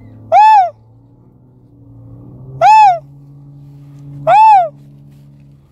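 Swan call blown by a hunter to draw in swans: three loud, evenly spaced hooting notes, each rising and then falling in pitch.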